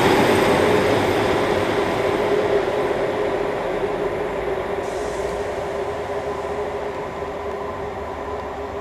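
Two coupled Class 150 Sprinter diesel multiple units running under power, their underfloor Cummins diesel engines giving a steady drone along with wheel and rail noise. The sound fades steadily as the train draws away.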